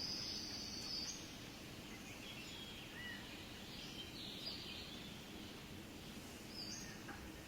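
Ambient nature soundscape: scattered short, high bird chirps over a steady, faint background hiss.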